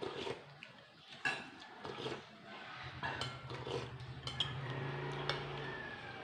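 Cutlery clinking and scraping against plates and bowls during a meal, in scattered sharp clicks. A low steady hum joins for about three seconds in the middle.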